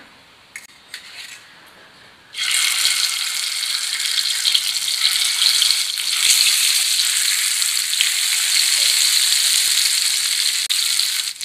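Masala-coated egg rounds frying in hot oil in a non-stick pan, with a loud, steady sizzle. The sizzle starts suddenly about two seconds in, as the first egg goes into the oil.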